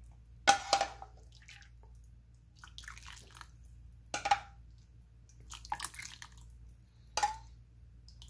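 Soup ladled with a metal ladle into a ceramic bowl: about five separate pours and splashes of broth, each starting sharply.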